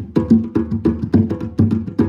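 Two djembes played with bare hands in a steady, fast rhythm of about five strokes a second, deep ringing bass and open tones mixed with sharp slaps.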